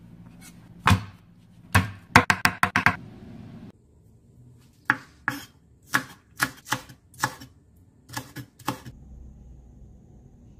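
Kitchen knife chopping on a cutting board. A few strikes lead into a quick run of about six, then after a pause come about nine slower strikes roughly half a second apart.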